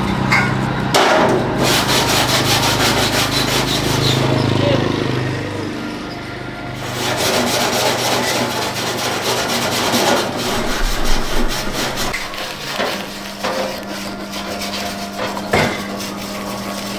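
Fast, even scraping or rubbing strokes, like sanding or scrubbing a part, over a low steady hum. The scraping eases off briefly partway through, then resumes.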